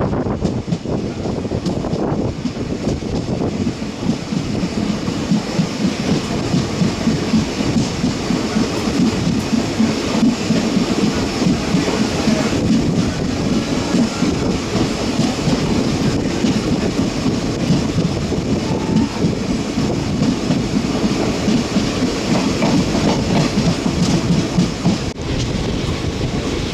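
Train running on rails, its wheels clattering steadily over the rail joints.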